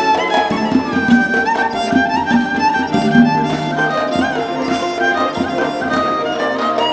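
Live orchestral music led by bowed strings playing a moving melody with sliding ornaments.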